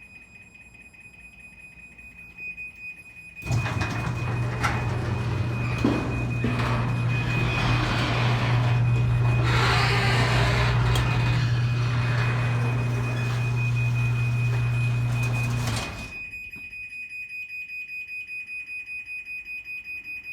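Garage door opener motor running as the door travels, a steady low hum with rattling, starting about three seconds in and stopping after about twelve seconds. Under it and on after it, the myQ hub's warning beeper sounds as a rapid string of high beeps, the alert given for a remotely operated door.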